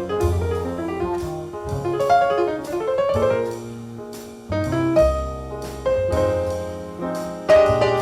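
Background music: piano-led, jazzy instrumental with a walking bass and light drums.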